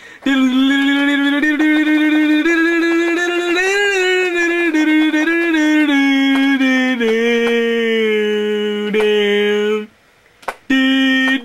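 A man's voice imitating instrumental music: one long sung tone held on a nearly steady pitch, stepping lower about seven seconds in. It breaks off near ten seconds and starts again just before the end.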